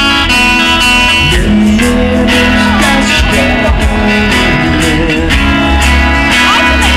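Live band music over a PA: acoustic guitars strummed and picked in an instrumental passage without singing, loud, with a heavy low end.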